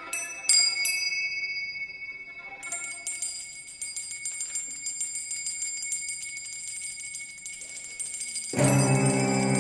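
Tibetan finger cymbals (tingsha) struck about half a second in, leaving a long high ringing tone, with another ring joining near three seconds in. Near the end the string quartet comes in loudly with a sustained bowed chord.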